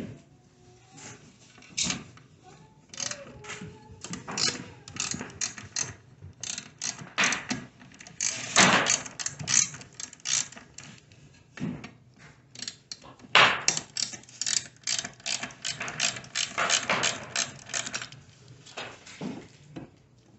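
Ratchet wrench clicking in quick runs of strokes as it turns the bolts at the back of an electric miter saw, loosening them.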